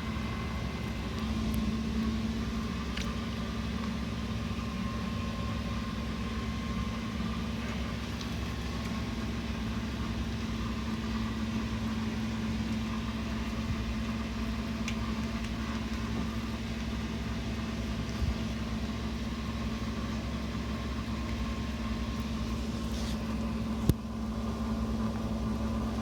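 Mercruiser 8.1 marine engine running steadily with an even hum, during a vacuum test of its fuel supply. A single sharp click comes about 24 seconds in.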